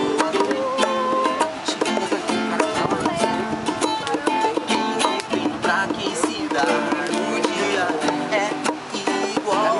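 Live acoustic music: a plucked-string instrument strummed in a steady rhythm, playing chords.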